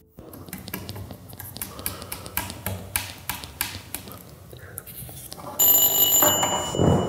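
Small clicks and rustles of things being handled on a table, then, about five and a half seconds in, a sudden steady high electronic ring from a doorbell.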